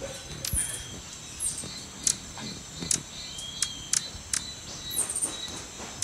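Jacobin hummingbird calling: about a dozen short, high-pitched squeaks at irregular intervals over a faint steady hiss.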